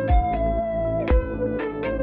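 Downtempo electronic music: a held synthesizer melody over a steady beat, with a deep kick drum about once a second.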